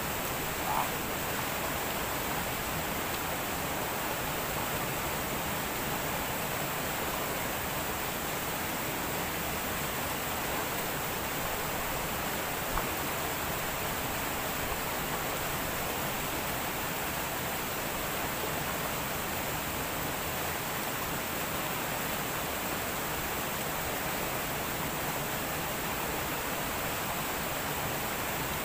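Steady rushing of a shallow rocky river flowing over stones, an even hiss of water.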